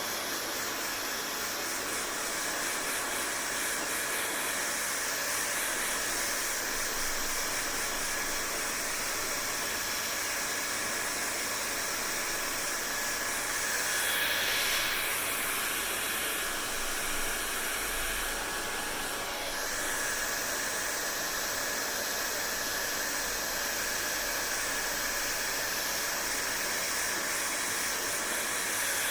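Hair dryer running steadily: a rushing hiss of blown air with a faint high motor whine. It swells briefly about halfway through and dips a few seconds later.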